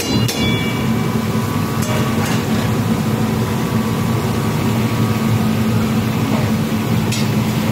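Hot oil sizzling and bubbling in a large wood-fired karahi, over a steady low rumble.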